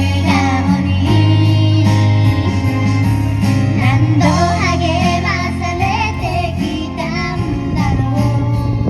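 A young girl singing a pop song over a recorded backing track with a steady bass line.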